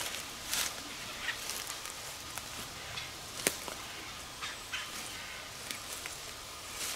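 Squirrel barking: short, sharp alarm calls at irregular intervals, with one sharper snap about three and a half seconds in.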